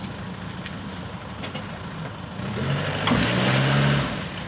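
A recovery vehicle's engine running, then revved hard for about a second and a half near the end as it pulls on a tow strap to snatch a stuck 4x4 out of a water-filled hole, before dropping back.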